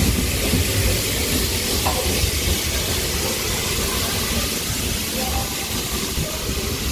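Steam locomotive 60163 Tornado, a three-cylinder Peppercorn A1 Pacific, moving slowly along the platform: a steady hiss of steam over a low rumble of the engine and wheels.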